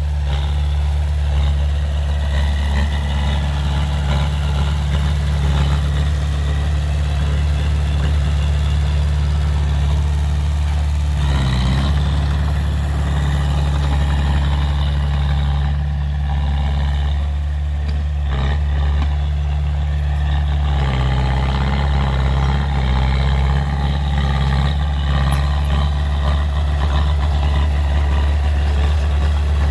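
Heavy diesel engine of earthmoving machinery running steadily with an even low drone. The sound briefly shifts about eleven seconds in and again about eighteen seconds in.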